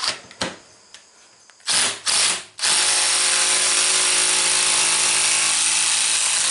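Small cordless impact driver with a socket adapter, hammering on a rust-seized muzzleloader breech plug. After a couple of clicks and two short trigger blips, it runs on steadily from about a third of the way in. The plug does not break loose.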